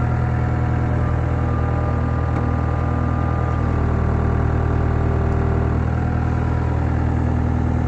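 CAT skid steer loader's diesel engine running steadily at idle, on a test run after a burst hydraulic hose was replaced.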